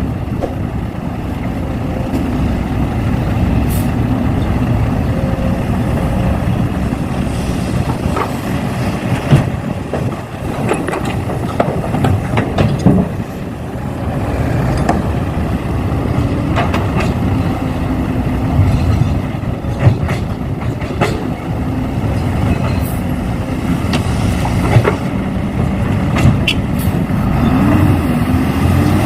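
Steady engine-like running and gear noise from radio-controlled model construction machines, an excavator and a dump truck, at work. Scattered sharp clicks and knocks come through it, and a pitch rises just before the end.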